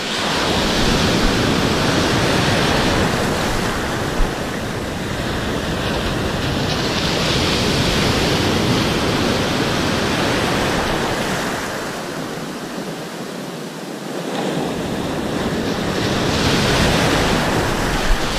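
Ocean surf breaking and foaming whitewash washing around the shallows, loud and continuous. It swells and eases as successive waves come through, dipping for a moment about two-thirds of the way in.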